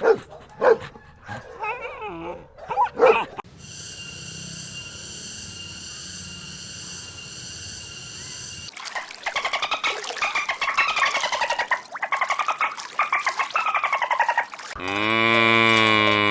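A sequence of animal calls. It opens with short separate calls, then a steady hum for about five seconds, then a long run of rapid chattering calls, and near the end one loud, long, pitched call that sinks slightly in pitch.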